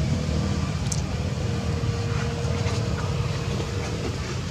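Steady low rumble of background noise with a faint steady hum through the middle, and a brief high tick about a second in.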